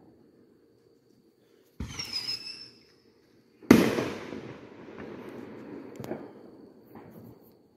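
Consumer fireworks: a sharp pop with a short whistle about two seconds in, then a loud aerial shell burst that rolls away over a few seconds, with a couple of smaller cracks after it.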